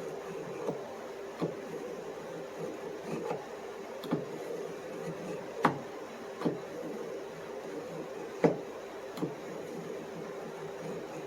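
A folding knife blade being drawn over the fine side of a knife sharpener, one short scraping stroke roughly every second, for the final honing of the edge. A steady low hum runs underneath.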